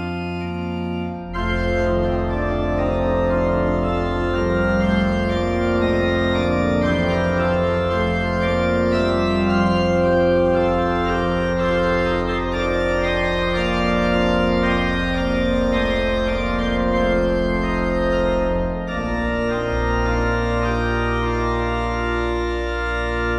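Sampled pipe organ (a Hauptwerk virtual organ built from samples of the 1981 Reil organ at Ermelo's Immanuelkerk) playing full-voiced Baroque organ music: sustained chords and moving lines over a deep pedal bass. The pedal bass comes in about a second in, and the phrase ends near the end.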